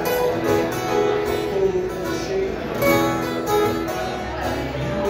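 Live acoustic bluegrass band playing: a five-string banjo rolling, acoustic guitars and a dobro picking a steady run of plucked-string notes.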